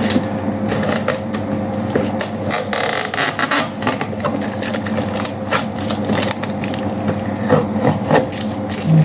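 Cardboard and plastic packaging of a water filter being handled and pulled apart: irregular rustling, crinkling and clicks throughout.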